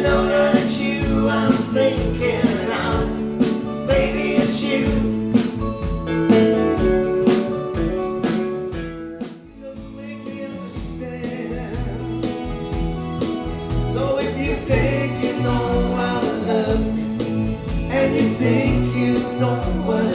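Live band music with singing over a steady beat; it drops away briefly about halfway through and then starts up again.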